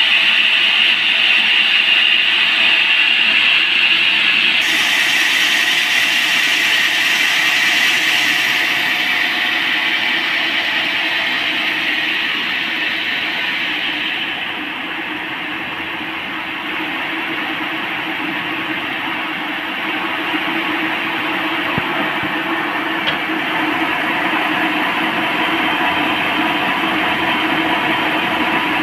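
Band sawmill running steadily as it saws through a large teak log; the higher part of the noise shifts about five seconds in and drops away about halfway through.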